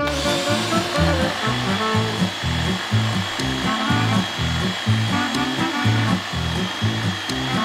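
Background music with a steady beat, over a cordless drill running steadily with a high whine as it bores through a wood block with a Forstner bit.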